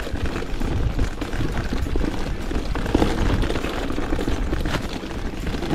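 Mountain bike riding fast over a rough trail of rocks and roots, with continuous rattling and rapid knocks from the tyres, frame and suspension over a low rumble.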